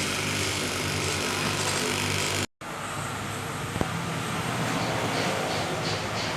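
A machine running steadily with a low hum. The sound cuts out completely for an instant about two and a half seconds in, then resumes, with a single click about a second later.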